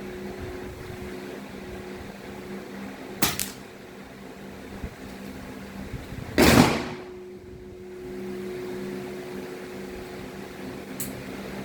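An air rifle being shot: a sharp click a little after three seconds in, then a single loud shot about six and a half seconds in, and a faint click near the end. A steady low hum runs underneath.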